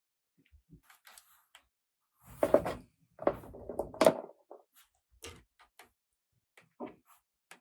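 Plastic toy pieces and packaging being handled: scattered small clicks and taps, with a louder spell of rustling and clacking about two to four seconds in.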